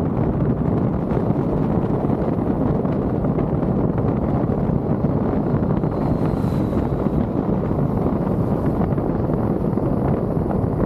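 Steady wind and road noise of a moving car, with wind buffeting the microphone.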